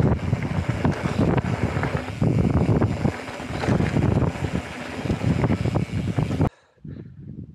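Mountain bike riding fast down a gravel track: wind buffeting the microphone, tyres rolling over gravel and the bike rattling over bumps. It cuts off abruptly about six and a half seconds in, leaving much quieter outdoor sound.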